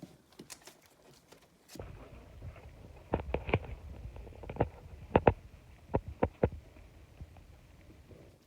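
Boerboel puppies eating their first solid food, with a low rumbling and a run of sharp clicks and knocks in the middle.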